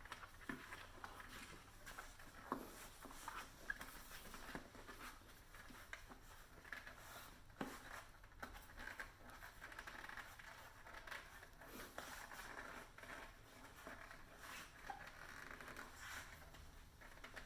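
Faint scraping, rubbing and small clicks of a tight tubeless road tyre's bead being forced onto the rim by hand and with tyre levers.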